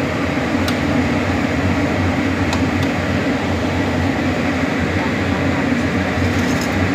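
Kitchen range hood fan running steadily: a low hum under an even whooshing rush, with a few faint clicks.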